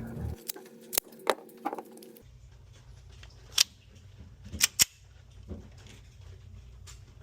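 Irregular sharp clicks and knocks, a few at a time, the loudest a pair close together just under five seconds in.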